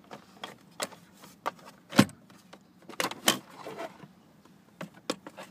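Scattered clicks and knocks of hard plastic from hands working at a BMW's steering-column cover and clock spring (slip ring), the sharpest knock about two seconds in.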